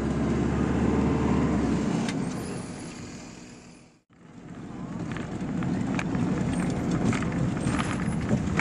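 Inside a small bus while it is moving: engine hum and cabin rumble. The sound fades out about four seconds in and fades back in, now with frequent rattles and knocks as the bus is shaken along.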